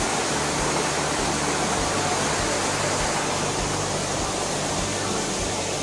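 Steady rush of fast-flowing stream water cascading over rocks.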